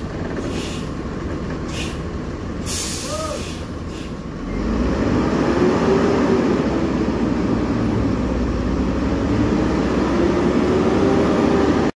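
Large coach's diesel engine running under a series of short air hisses from the bus's air brakes in the first few seconds. About four and a half seconds in, the engine is revved and runs louder with a drone that slowly rises and falls in pitch as the bus pulls through a tight turn.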